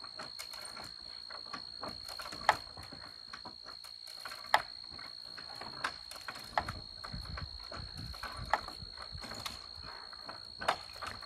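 Sharp knocks from wood-frame wall construction work, one every second or two, over a steady high-pitched tone that runs throughout. A low rumble comes in briefly past the middle.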